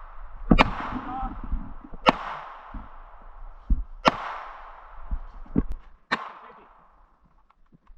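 Four gunshots from a firearm, evenly spaced about two seconds apart, each crack followed by a trailing echo.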